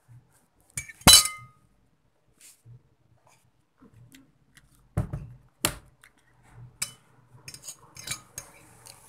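Tableware clinking as a meal of noodles is eaten: one loud ringing clink about a second in, then two sharp knocks about five seconds in and a run of lighter clicks and knocks near the end.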